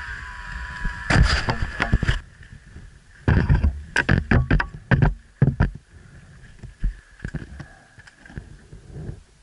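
Enduro dirt bike engine given short bursts of throttle as it climbs over rocks close by: a burst about a second in, then a quick run of blips, with a steady high tone under them. After about six seconds it drops back to a low, quieter run.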